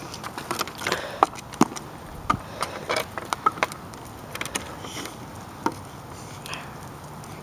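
Hockey stick blade clacking against street-hockey balls, pucks and a synthetic-ice shooting pad: a quick, irregular run of sharp taps and knocks that thins out after about halfway.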